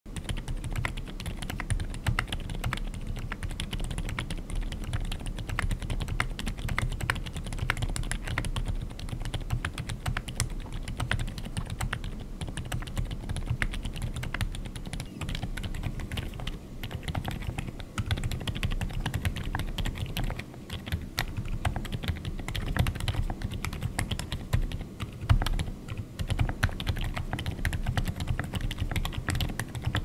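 Continuous fast typing on a Monsgeek M1W aluminium mechanical keyboard with Outemu Lime/Lemon silent tactile switches: a dense, unbroken stream of muted keystrokes. ABS keycaps in the first half, PBT keycaps in the second half.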